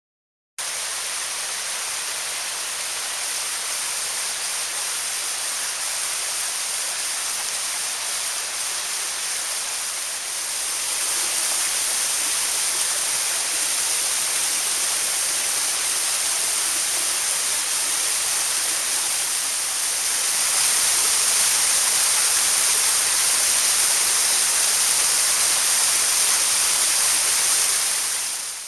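Waterfall: a steady hiss of falling water that grows louder in two steps, about ten and twenty seconds in.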